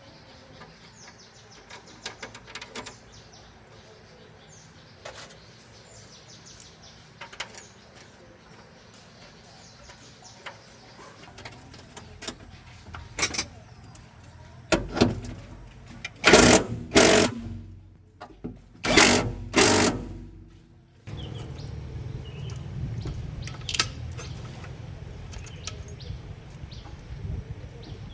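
A car engine being started: a few loud bursts as it turns over, then it catches and settles into a steady low idle for the rest of the time.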